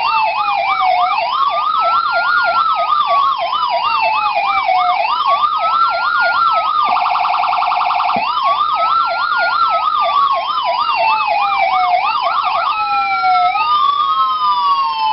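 Signal SA-441 Magnum electronic siren sounding two tones at once: a fast yelp over a slow wail. About 7 s in it breaks into a rapid pulsing warble for about a second, then the yelp-over-wail comes back; about 13 s in the yelp drops out and two wailing tones fall together.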